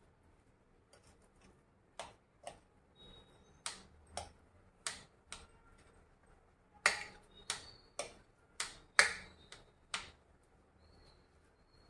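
Kitchen utensils clinking: about a dozen sharp, irregular clicks and taps, some ringing briefly like metal, with the busiest run in the second half.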